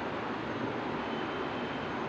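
Steady, even background hiss with no distinct events, and a faint thin high tone briefly about halfway through.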